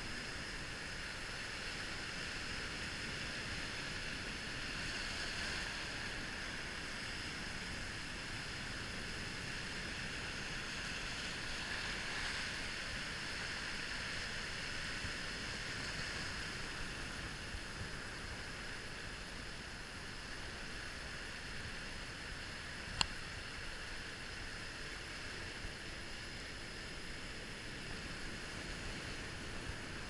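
Sea surf breaking and washing over shoreline rocks: a steady rush of foaming water that swells and eases. One brief click about two-thirds of the way through.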